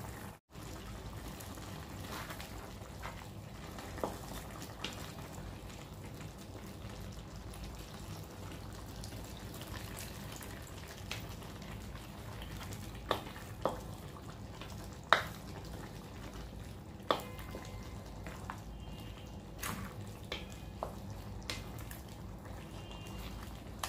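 Pork and pork blood simmering and frying in a steel wok, a steady hiss, while a wooden spatula stirs it, scraping and knocking against the wok now and then. The loudest knock comes about fifteen seconds in.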